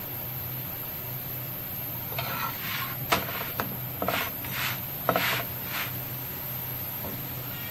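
A metal spatula scraping and tapping across a paratha on a hot tawa griddle, about six strokes with sharp clicks between two and six seconds in, over a steady low hum.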